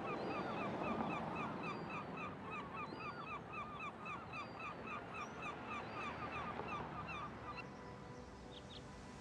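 A flock of birds calling in a rapid run of short, repeated calls, about three or four a second, over a faint hiss, with a few thinner, higher calls among them. The calls stop about three-quarters of the way through.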